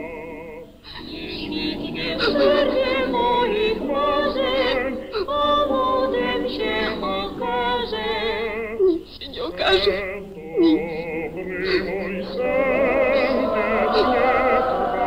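Slow orchestral film score with singing voices, its long held notes wavering with vibrato; it dips briefly about a second in.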